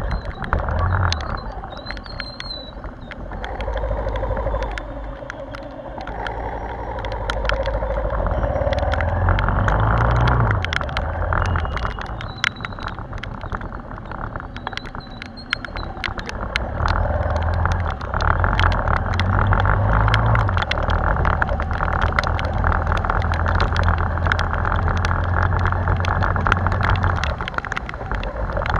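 Motorbike engine and wet-road noise, muffled as if heard through a waterproof action-camera case, the engine note rising and falling with speed. Raindrops tick against the case.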